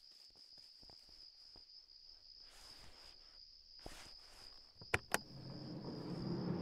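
Crickets chirring in a steady high trill, with scattered soft taps. Two sharp clicks come about five seconds in, and a low hum rises near the end.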